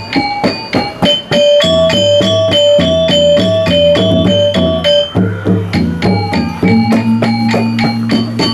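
Balinese gamelan gong kebyar playing: bronze metallophones and gongs struck in fast, repeating interlocking patterns. A high two-note figure alternates through the first half, and a low ringing tone comes in about two-thirds of the way through.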